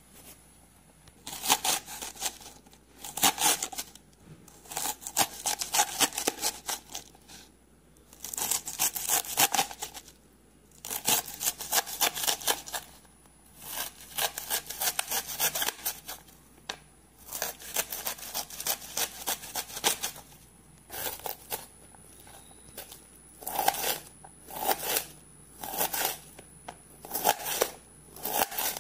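A kitchen knife slicing through a cabbage onto a plastic chopping board, in quick runs of cutting strokes a second or two long with short pauses between.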